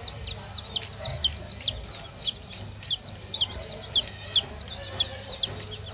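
Baby chicks peeping constantly: many short, high cheeps falling in pitch, several a second, overlapping from several birds.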